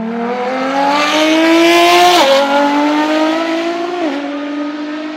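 A car engine accelerating hard, climbing steadily in pitch, with two quick upshifts about two and four seconds in, then fading away near the end.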